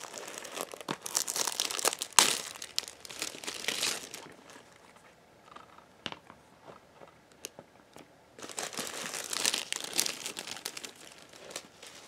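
Thin plastic shrink wrap crinkling and tearing as it is pulled off a DVD case. It comes in two bouts of rustling, with one sharp click about two seconds in and a quieter stretch of faint ticks in the middle.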